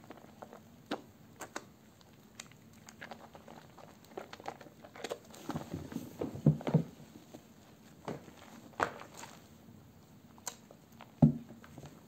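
Hands squeezing and rubbing thick soap lather from soaked soap remnants: irregular wet squishes with a fine crackle of foam. A few louder squelches come just past the middle and near the end.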